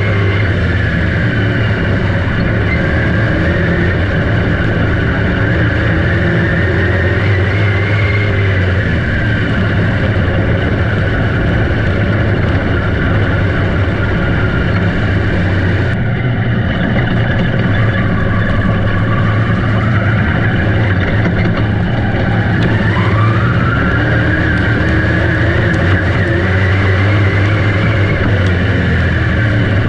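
Dirt track race car engines running hard on the track, their pitch slowly rising and falling as the throttle comes on and off.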